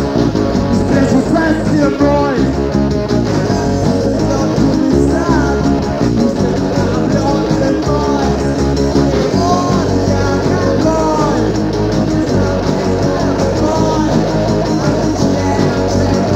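Rock band recording: electric guitar playing lead lines with bent notes over bass guitar and drums.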